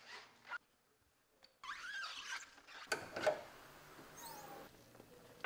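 Handling noises at a car's front end: squeaky rubbing, then sharp clicks and a clunk about three seconds in as the hood is unlatched and raised, with a faint squeak near the end.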